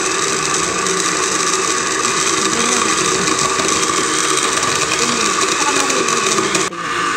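Countertop electric blender running, blending papaya chunks with ice cubes, milk powder and water into a shake: a loud, steady motor whir with a strong hum. Near the end the hissy upper part of the sound drops away abruptly while the motor runs on.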